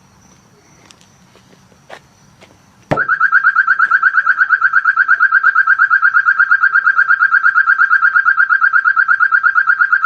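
A few faint clicks, then about three seconds in a sharp click and a car alarm sounds: a loud, high-pitched tone warbling quickly and evenly, several times a second, without a break.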